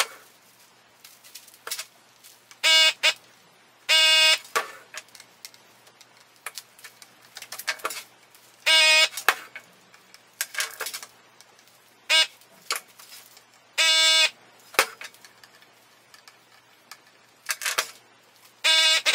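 Vacuum desoldering gun's pump buzzing in short bursts, five times, each about half a second, as it sucks solder off the leftover capacitor leads on a circuit board. Small clicks and taps of the tool and board come between the buzzes.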